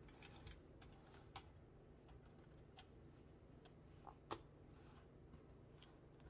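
Mostly near silence with a few small, sharp clicks and taps of plastic building bricks being handled and pressed together, the loudest about four seconds in.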